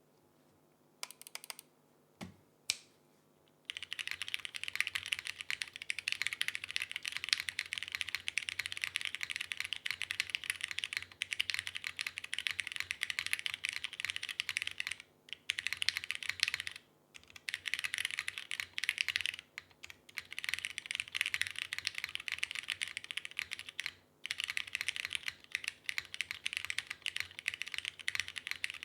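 Typing on a Kei R2 mechanical keyboard with lubed Hyperglide Cherry MX Black linear switches, a polycarbonate half plate and a brass bottom. A few single key presses at first, then continuous fast typing from about four seconds in, broken by a few short pauses.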